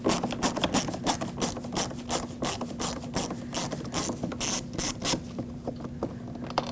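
Ratcheting Phillips-head screwdriver clicking in quick strokes as a screw is backed out, about four or five clicks a second, stopping a little after five seconds in.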